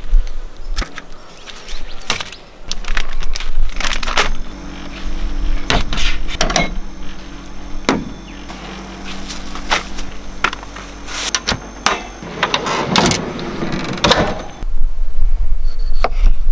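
Irregular knocks, clicks and rustling as food and gear are handled while a wrap is put together, with a steady low hum for several seconds in the middle.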